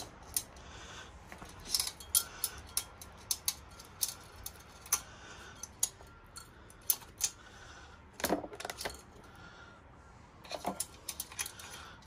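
Irregular small metallic clicks, taps and light rattles as the steel ends and fittings of new throttle cables are handled and fed through the frame gap by the steering head, with a short cluster of louder knocks about two-thirds of the way in.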